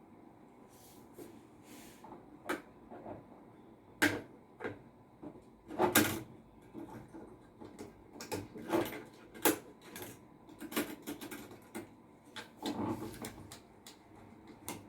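Computer parts and their packaging being handled on a work surface: irregular sharp clicks, taps and knocks, the loudest about four and six seconds in.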